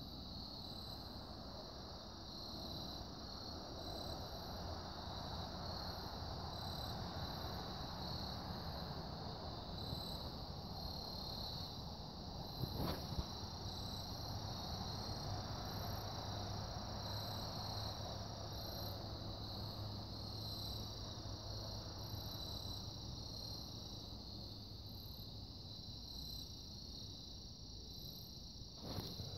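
Chorus of crickets trilling steadily, with a higher pulsing chirp repeating over it. Two sharp clicks, one about halfway through and one near the end.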